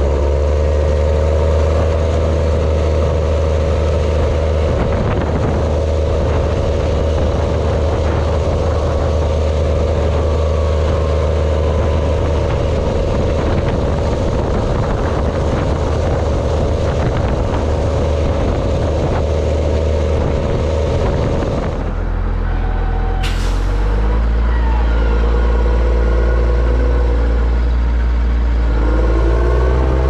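New Holland T7030 tractor's six-cylinder diesel engine running under load at road speed, with tyre and road noise. About 22 s in, the engine note drops as the tractor slows, a short sharp hiss follows, and the engine then runs lower, rising again near the end.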